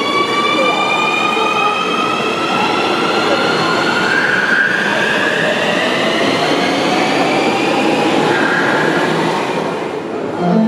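Subway train pulling out and accelerating: its traction motors give a whine of several tones that rises steadily in pitch, over a steady rumble of wheels on rail. The sound eases off near the end.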